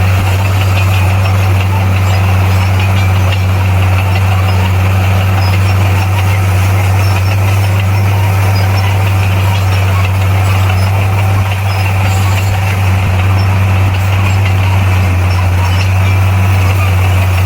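Bulldozer's diesel engine running steadily with a strong low hum.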